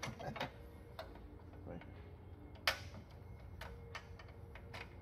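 Light clicks and taps of a small engine's recoil starter cover being handled and seated against its mounting bolt holes, with one sharper click a little under three seconds in.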